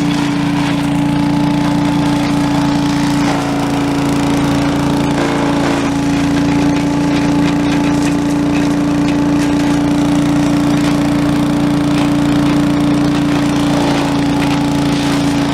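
Small gasoline engine running at a steady speed, holding one even pitch with no revving.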